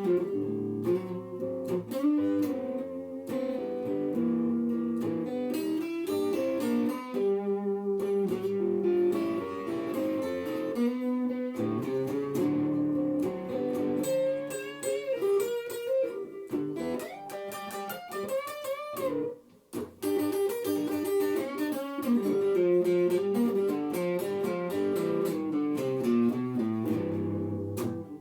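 Guitar playing slow blues: single-note lead phrases with some bent notes over a lower accompaniment, with a short break about two-thirds of the way through.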